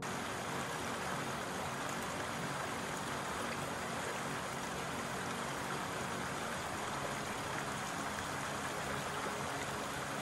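A mountain creek rushing steadily over rocks and small cascades.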